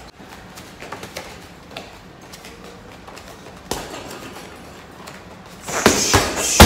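Boxing gloves punching a hanging heavy bag. There is a single hit about halfway through, then a quick run of hits near the end, the last one the loudest.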